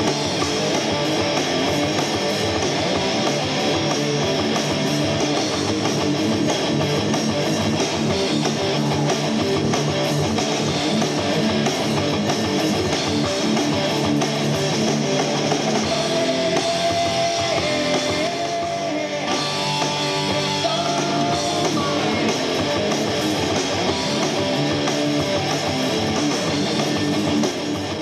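Hard rock band playing with electric guitar, bass guitar and drums.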